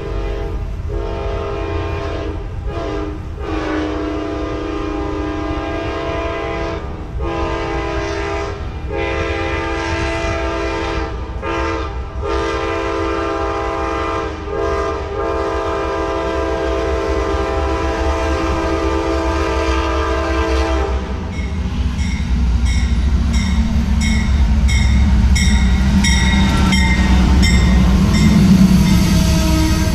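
Train locomotive's horn sounding in long blasts with short breaks as the train approaches. About two thirds of the way through the horn stops and the passing train's heavy rumble takes over, with a steady clickety-clack of wheels over the rail joints, getting louder toward the end.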